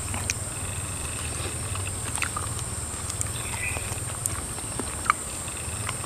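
Mouth-blown uklik bird caller, used to lure birds, giving short sharp clicks at irregular intervals, about one or two a second, with a couple of thin, steady whistled notes between them.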